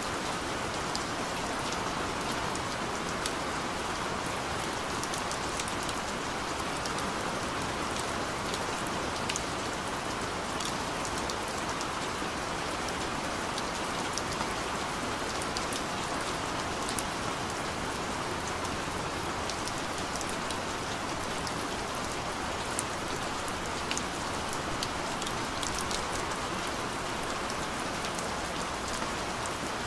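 Steady rain, an even hiss with scattered small drop taps, used as the masking bed of a subliminal track.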